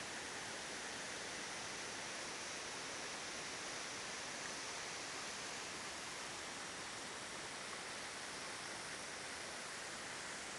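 Waterfall's steady rushing noise, even and unchanging.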